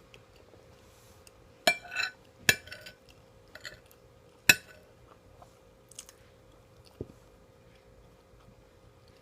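A spoon clinking and scraping against a plate while eating omurice: three sharp clinks with short scrapes in the first half, then a couple of light taps, with quiet chewing.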